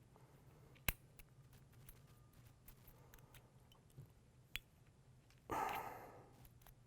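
A small metal pick working at a spring cage on a snow plow wire harness pin, trying to pry it off. Faint scattered clicks, a sharp click about a second in, another past four seconds, and a short scraping rasp after five seconds.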